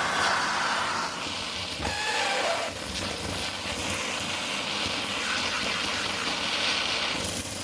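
Vacmaster Captura vacuum cleaner running with a steady rushing noise whose tone shifts higher about halfway through.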